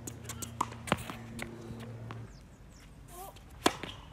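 Tennis ball strikes during a rally on a hard court: a few sharp knocks of ball off racket strings and court surface, the loudest near the end as the near player hits a forehand.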